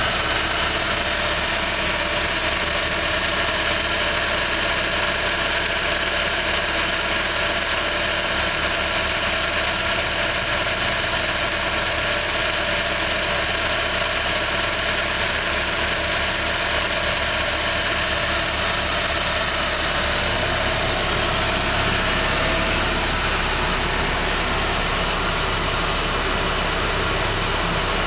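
2011 Ford Fiesta engine idling steadily, with a steady high-pitched noise over the running. This is the irritating noise the owner hears when the engine is started cold, unexpected in a car with only 10,000 km.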